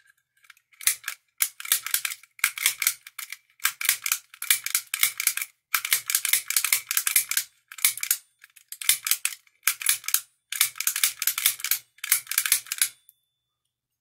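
Lock pick raking the pin tumblers of a cheap laminated-steel padlock under a tension wrench: rapid metallic clicking and scraping in about eleven bursts that stop near the end.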